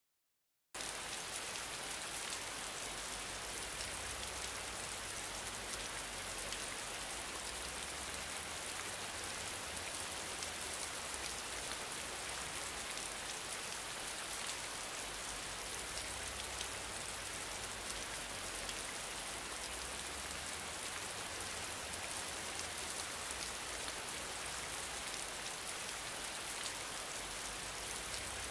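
A steady, even hiss with no changes in it, cutting in abruptly out of dead silence about a second in.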